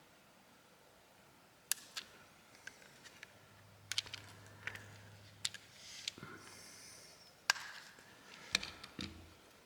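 Flathead prying tool clicking, tapping and briefly scraping against the plastic parts of a phone's opened housing while prying out its loudspeaker module: about nine sharp separate clicks with a short scrape around the middle.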